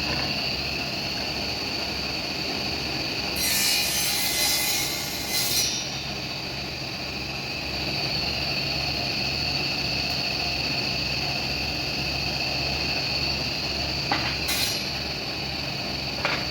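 Woodworking power tool running steadily with a constant whine and hum as it works wood. There is a louder burst of hiss about three seconds in lasting a couple of seconds, and a brief one near the end.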